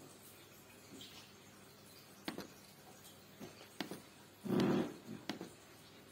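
Laptop touchpad clicking as colours are filled in: about four sharp single clicks spaced roughly a second apart, with a louder, muffled thump or rub lasting about half a second a little past the middle.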